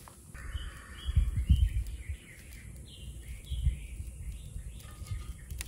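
Birds chirping in short repeated calls over a low, gusting rumble of wind on the microphone, loudest about a second in.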